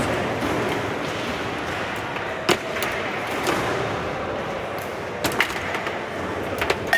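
Foosball table in play: the ball knocked about by the plastic figures on their steel rods, with a sharp knock about two and a half seconds in and a quick run of knocks near the end, over a steady background noise.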